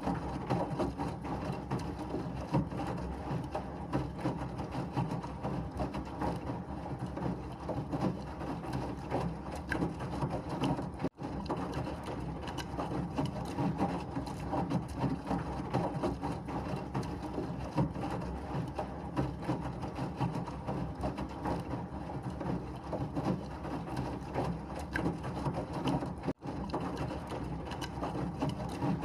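Washing machine running steadily, a dense mechanical churning with water-like noise. The sound cuts out for an instant twice, about 11 and 26 seconds in.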